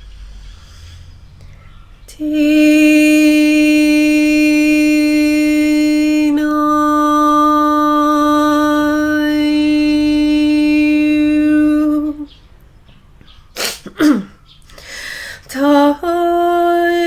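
A voice toning long, steady held notes on a vowel, one note lasting about ten seconds, then a couple of quick pitch sweeps and a new, slightly higher held note near the end.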